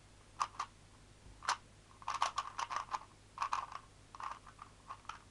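Rubik's speed cube, lubed and still loosely tensioned, being turned fast by hand: quick runs of plastic clicks and clacks as the layers snap round, in bursts with short pauses between.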